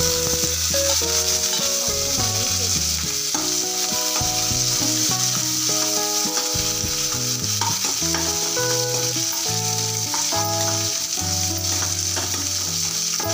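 Sliced shallots and onion frying in hot oil in a nonstick kadai, a steady sizzle as they are tipped in and stirred with a spatula.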